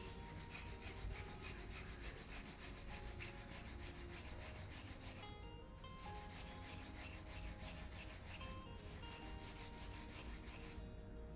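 Scouring pad scrubbing the burnt underside of a frying pan coated in a wet homemade cleaning paste: quick, repeated rubbing strokes, broken by a couple of brief pauses.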